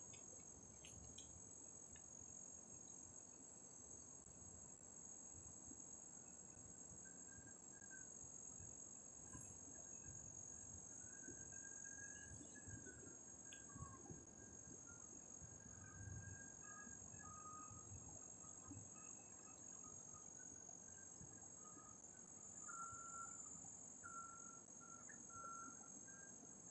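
Faint, steady high-pitched insect chorus, as of crickets trilling in the waterside vegetation, with faint short high notes coming and going from about a quarter of the way in.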